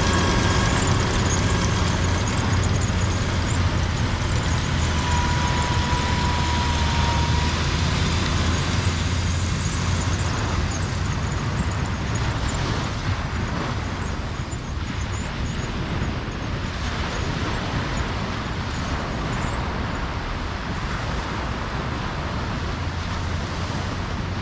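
Steady rushing wash of ocean surf on a beach, under a continuous low hum.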